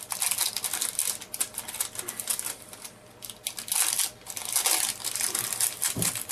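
Small clear plastic parts bag crinkling and crackling in the fingers as it is handled and opened, a quick irregular run of crackles that gets louder about four and five seconds in.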